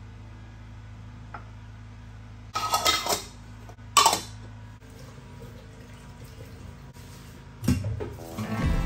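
Dishes and pans clattering: two short bursts of clinking a little past halfway, then more clattering near the end, over a steady low hum that stops about halfway through.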